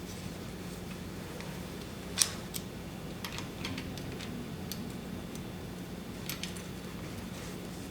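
Scattered small clicks and taps of tools and metal bicycle parts being handled during a build, with one sharper click about two seconds in, over a steady low hum.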